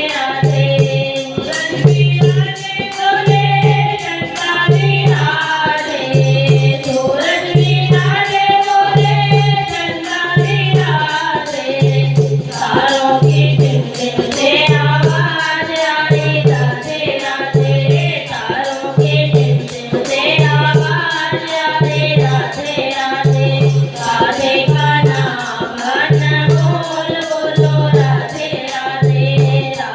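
Hindi devotional bhajan: voices singing over a steady low drum beat, about three beats every two seconds, with jingling percussion throughout.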